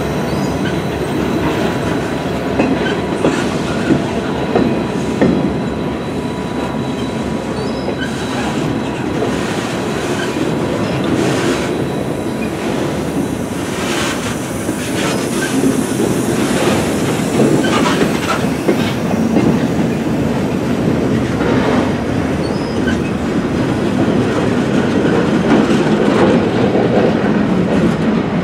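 Steel wheels of loaded railroad flatcars rolling past at close range: a continuous rail rumble broken by irregular clacks as the wheels cross rail joints, with a faint steady high tone over it.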